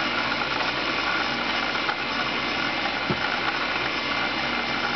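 Homemade CNC coil winder running, its spindle and traversing table motors making a steady whirring hum with faint steady tones, while it winds 24-gauge Litz wire onto a coil form. A soft low bump sounds about three seconds in.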